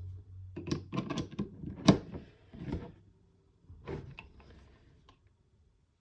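Knocks and clatter of hard parts and tools being handled on a workbench: a run of sharp knocks with the loudest about two seconds in, then a few lighter taps around four seconds.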